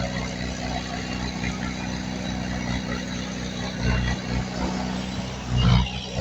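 Diesel engine of a heavy earthmoving machine running steadily, with brief louder surges about four seconds in and again near the end.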